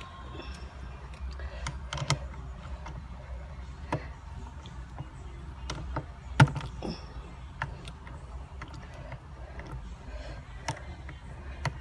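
Scattered clicks and knocks of a hand tool and small metal parts while a 10mm bolt is worked loose at the shifter of a car's center console, the sharpest knock about six seconds in. A low steady hum runs underneath.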